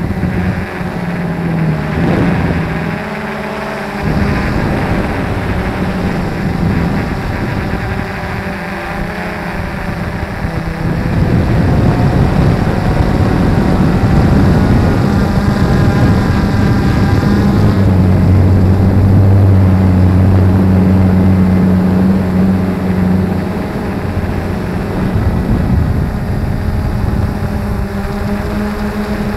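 Quadcopter's electric motors and propellers buzzing, heard from the camera on board. The pitch of the hum shifts as the throttle changes, and it is loudest for about ten seconds in the middle.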